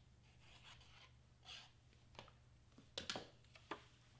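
Faint handling of a glued cardstock piece: a soft rub, then a few light clicks and taps about three seconds in as it is laid onto the foam board and pressed down.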